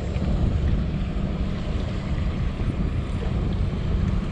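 Wind buffeting the microphone: a steady low rumble with a fainter hiss over it.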